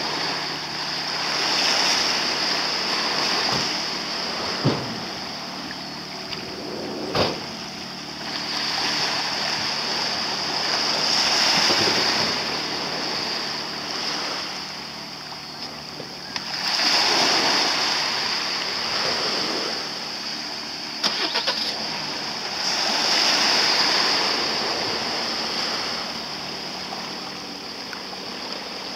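Small waves washing in at the water's edge, swelling and fading in surges every five or six seconds over a steady hiss, with a low steady hum underneath. Two short sharp knocks come about five and seven seconds in.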